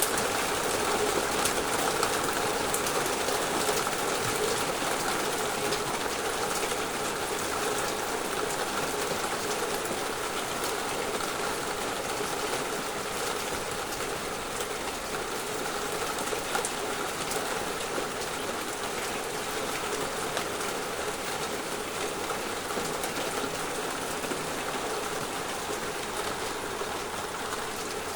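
Heavy downpour of rain: a dense, steady hiss of rain with scattered individual drop clicks, easing slightly in loudness over the course.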